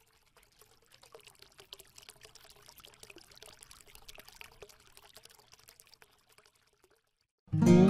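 Faint trickling of water, a fine patter of many tiny clicks, that dies away about seven seconds in. Strummed acoustic guitar music starts loudly just before the end.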